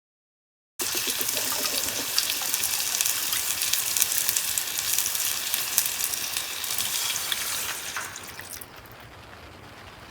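Food sizzling on a hot pan or grill: a dense crackling hiss that starts suddenly about a second in and quietens near the end.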